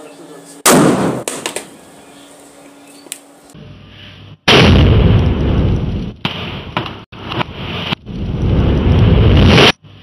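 Hydro bomb firecracker exploding under a motorcycle helmet: a sharp bang about a second in, then from about four and a half seconds a long, loud, rumbling blast lasting about five seconds that ends abruptly.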